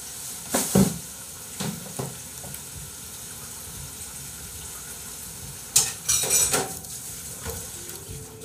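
Dishes and cutlery clattering and clinking during washing-up, over a steady hiss. There are a few separate clinks early on and a longer bout of ringing clatter about six seconds in.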